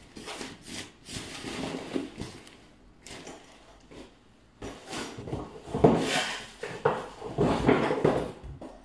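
Rummaging and handling: a hand searching through a padded nylon carry bag, with rustling and irregular knocks and clatter of hard items, loudest in the second half.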